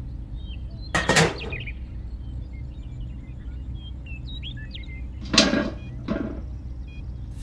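Steady low engine drone with birds chirping over it, broken by short rough bursts about a second in and twice around five to six seconds in.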